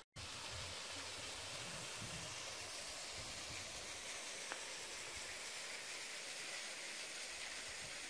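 A steady, even hiss of outdoor background noise, with a few low rumbles in the first two seconds.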